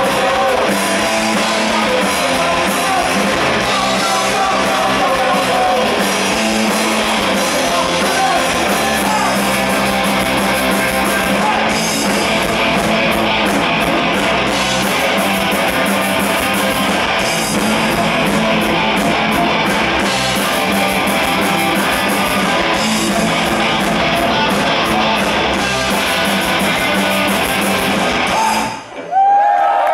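Punk rock band playing live: distorted electric guitars, drums and sung vocals through the stage PA. The music stops abruptly near the end and a loud shout rises from the crowd.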